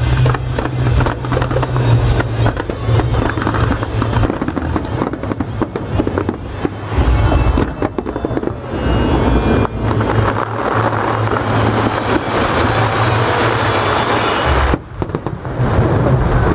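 Fireworks display going off: a dense run of crackles and bangs, with a short lull near the end.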